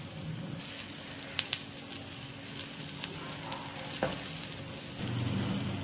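Egg paratha frying on a flat iron tawa, with oil poured around its edge sizzling steadily. A few sharp clicks break through, the loudest pair about one and a half seconds in.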